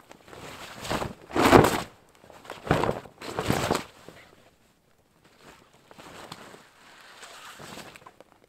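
Heavy unwaxed canvas cloak rustling and flapping as it is swung and shaken, in a few loud bursts over the first four seconds, then softer rustling.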